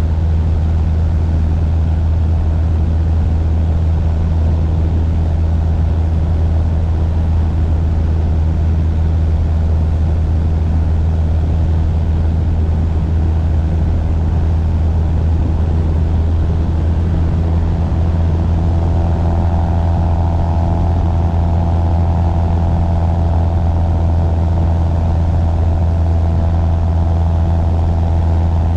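Cessna light aircraft's piston engine and propeller running at a steady cruise, a loud, even drone. A higher steady hum joins in a little past halfway through.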